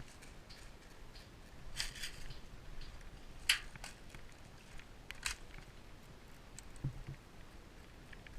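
Faint, scattered rustles and clicks. The sharpest click comes about three and a half seconds in, and a couple of low thuds follow near the end.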